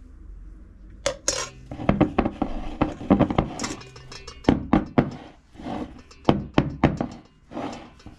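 Kitchen utensils clinking and knocking against dishes in quick, irregular strokes, beginning about a second in.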